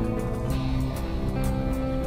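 Background music: held notes over a light, steady beat.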